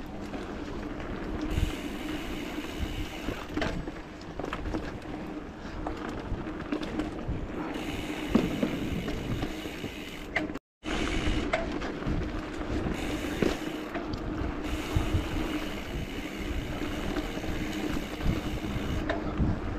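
Mountain bike being ridden on a dirt trail: steady rolling tyre and drivetrain noise with scattered rattles and knocks as the bike goes over bumps. The sound cuts out for an instant about eleven seconds in.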